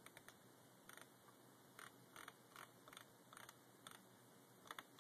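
Faint, scattered clicks and short rattles of small parts being handled, about ten in all, with a quick double click near the end.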